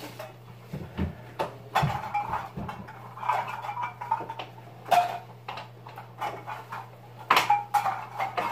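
Empty dip cans clicking and clattering against one another as they are picked up and stacked, a run of sharp knocks.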